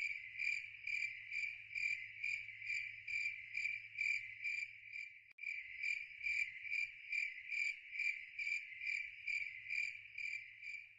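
Crickets chirping: a steady high trill pulsing about three times a second, briefly broken about five seconds in, over a faint low hum.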